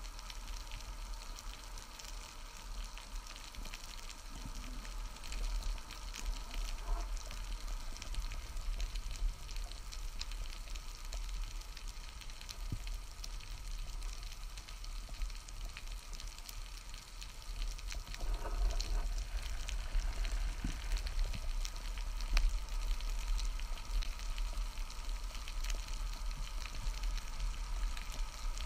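Underwater ambience over a rocky seabed: a constant fine crackling and hiss, with a steady low rumble underneath.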